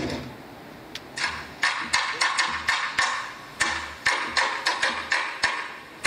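Percussion music for the dance: the track before it fades out, then about a second in a quick pattern of sharp, wood-block-like clicks starts, roughly three or four a second, over soft low drum thuds.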